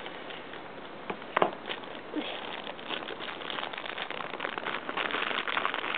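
Two sharp clicks a little over a second in, then a thin clear plastic bag crinkling as it is handled, growing louder toward the end.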